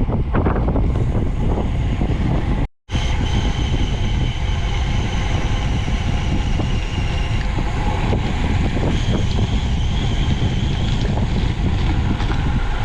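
Wind buffeting the microphone, with road noise while cycling. A faint high whine comes and goes, and the sound cuts out for an instant about three seconds in.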